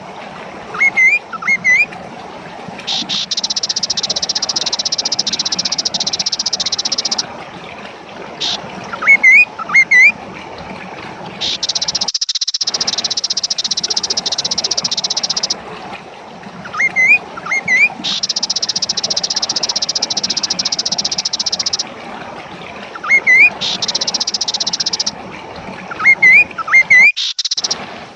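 Recorded song of a kaso-kaso bird in full song, looping: clusters of short, sharp rising chirps alternate with stretches of a high, dry buzzing trill lasting several seconds, the pattern coming round about every eight seconds.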